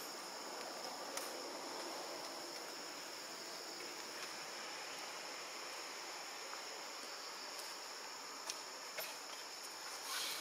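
Steady, high-pitched insect chorus, with a few faint clicks and a brief louder rustle near the end.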